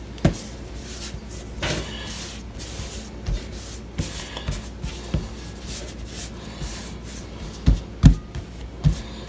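Hands working bolillo dough on a work surface: soft rubbing and handling noise, with a few dull thumps near the end as the last rolls are set down.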